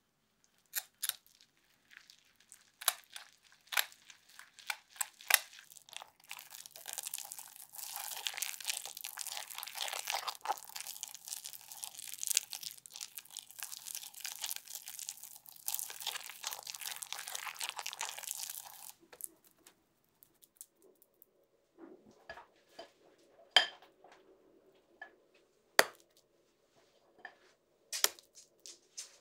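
A fork mixing and mashing thick blueberry-jam and almond-flour tart filling in a glass bowl. First come scattered clinks and taps against the glass, then about thirteen seconds of steady wet scraping and mashing. After that there are a few sharp clicks of utensil on glass as the filling is spooned out.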